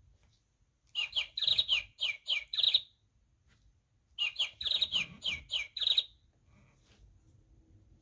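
Recorded bird chirping from a children's sound book's button: a quick run of about six tweets, then the same run again about a second later.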